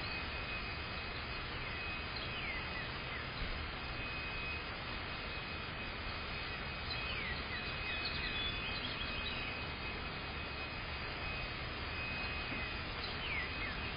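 Steady outdoor background noise with a faint steady high tone, and short falling bird chirps in small groups about two, seven to nine, and thirteen seconds in.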